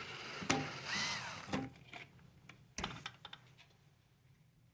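Cordless screw gun whirring briefly, its pitch rising and falling as it backs out a screw, followed by a few sharp clicks of screws and plastic parts being handled.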